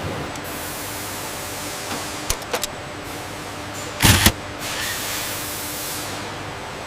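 Factory machinery running steadily with a low hum, broken by two sharp clicks about two and a half seconds in and a louder double clank about four seconds in.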